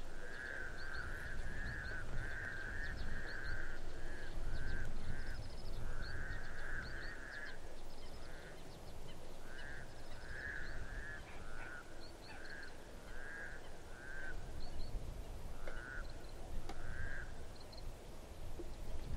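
Mallard hen quacking in a long series of short nasal quacks, about two a second at first, then fewer and more spaced out, the hen sound used to draw drakes in. Low wind rumble on the microphone underneath.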